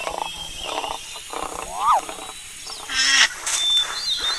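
An animal's calls: a run of short rough calls about every 0.7 s, with a louder call about three seconds in and thin bird-like chirps over them.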